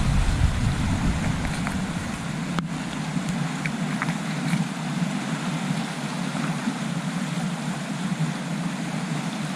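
Steady rush of a fast-flowing trout stream, with a few faint ticks.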